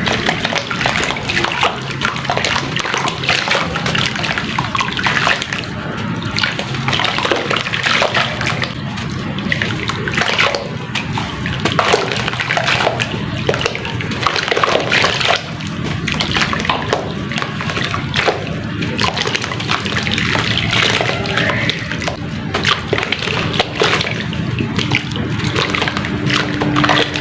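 Soft sand-and-cement chunks being dipped in a tub of water and crumbled by hand: a continuous wet sloshing and splashing with dense, gritty crackling.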